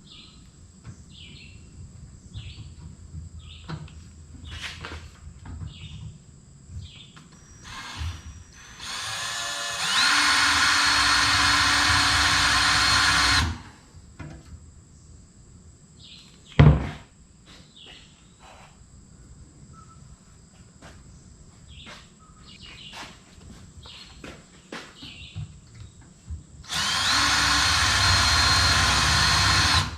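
Power drill running in two bursts of about three to four seconds, each spinning up quickly to a steady whine. A single sharp knock comes between them, with light clicks of handling in the gaps.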